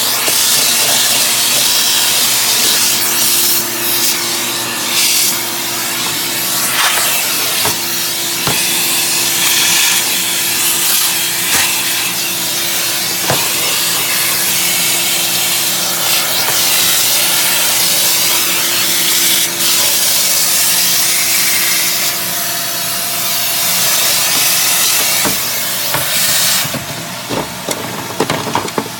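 Vacuum cleaner running steadily, its motor hum under a loud rush of air, with the nozzle rubbing and knocking as it is worked over a dollhouse; the level drops near the end.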